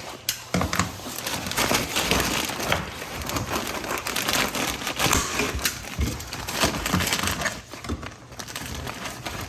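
Material being handled, crinkling and crackling continuously, with scattered small clicks and light knocks.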